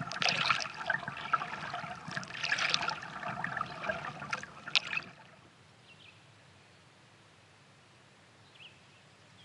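Kayak paddle strokes in lake water: the blade dipping in and lifting out with splashes and dripping water, with several sharper splashes. The paddling stops about halfway through.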